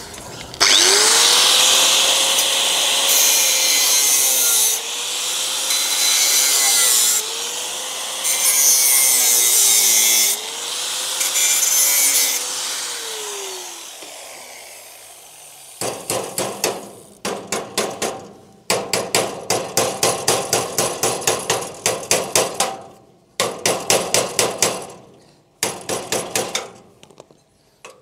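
A handheld electric power tool spins up and works on metal for about twelve seconds, its motor pitch sagging several times under load before it winds down. A few seconds later comes a run of rhythmic scraping strokes by hand, about three a second.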